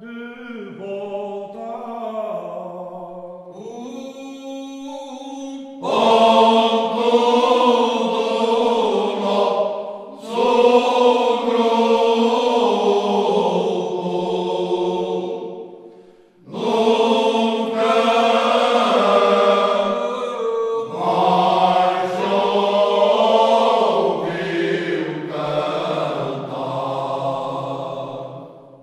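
Unaccompanied men's choir singing Alentejo cante. A lead voice sings alone, a higher voice joins it, and about six seconds in the whole group comes in together, much louder. The group holds slow, sustained phrases, with short breaks between them, the longest about sixteen seconds in.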